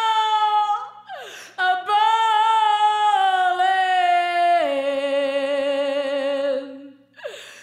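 A woman singing long, wavering held notes that step down in pitch, with little accompaniment underneath. She breaks for a breath about a second in, and again near the end.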